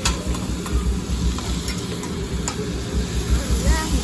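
Food sizzling on a hibachi griddle, with a few sharp clicks of metal utensils, over the steady din of the restaurant. A voice comes in faintly near the end.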